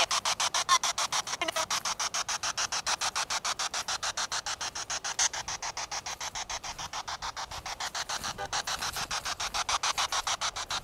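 SB7 spirit box sweeping through radio stations: choppy static pulsing roughly eight times a second, with faint brief snatches of broadcast sound caught between the pulses.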